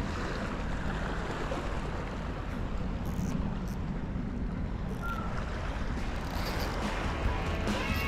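Steady wind rumbling on the microphone over small waves washing against a rocky shore.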